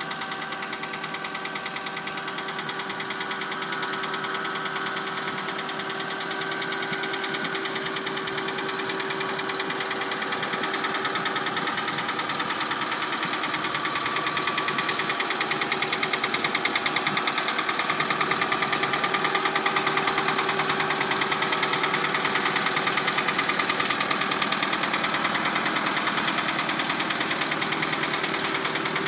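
Caterpillar 943 track loader's diesel engine running steadily with an even knocking beat, growing somewhat louder over the first fifteen seconds or so and then holding.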